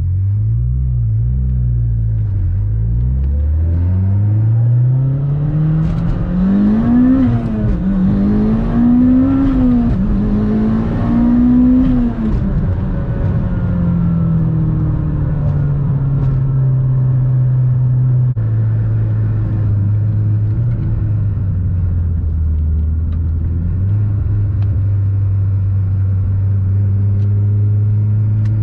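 Turbocharged 2.0 L four-cylinder of a tuned Mitsubishi Lancer Evolution X, heard from inside the cabin as it accelerates away. Its pitch rises for about twelve seconds with a few brief dips, then eases back into a steady cruise and steps lower again partway through.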